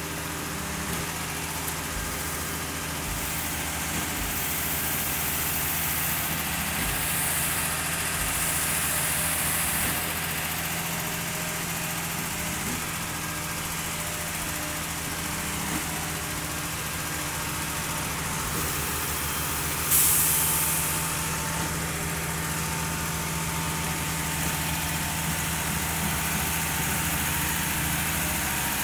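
Diesel engine of a concrete pump running steadily while it pumps concrete through the hose, with a sudden loud burst of hiss about twenty seconds in.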